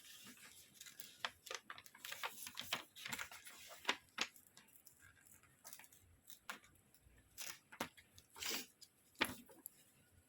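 Packaging being handled and opened by hand: irregular rustles, crinkles and light clicks, with a longer rustle near the end.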